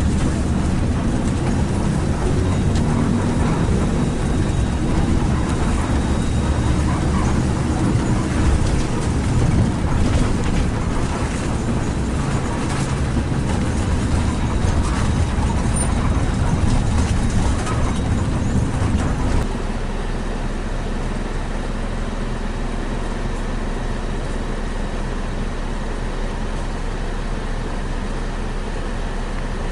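Intercity bus travelling on the road: a steady rumble of engine and road noise. About two-thirds of the way in it drops suddenly to a quieter, even hum.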